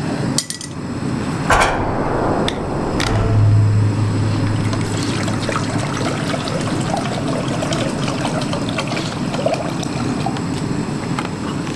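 Water poured from a plastic gallon jug into a stainless steel pot on a small isobutane camp stove, a steady trickle and splash. A few knocks come in the first three seconds, and a low hum swells for a few seconds about three seconds in.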